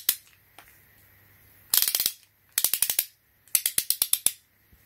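Ratchet head of a Pittsburgh Pro 1/2-inch-drive click-type torque wrench being turned by hand, the pawl giving three quick runs of sharp clicks after a single click at the start.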